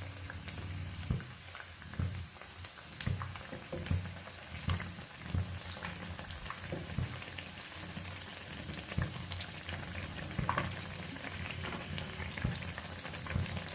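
Small dollops of vaja pitha batter deep-frying in hot oil in a pan: a steady sizzle with scattered irregular pops and crackles.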